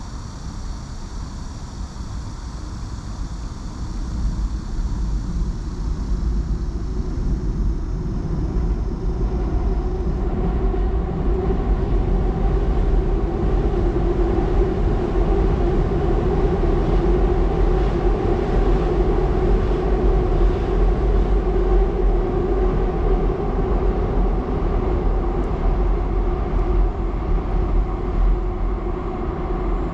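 A train crossing a steel railway bridge, heard from the riverbank. Its rumble builds over the first ten seconds or so, then holds steady with a low droning hum.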